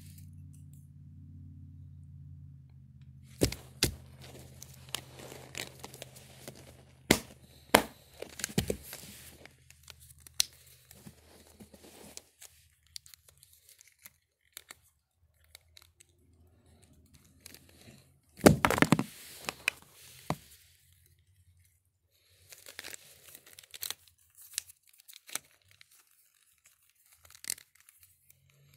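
Handling noise from plastic wrestling action figures worked close to a phone: scattered sharp clicks and knocks, and rustling as fingers and clothing rub near the microphone, loudest about two-thirds of the way through. A low steady hum fades out about a third of the way in.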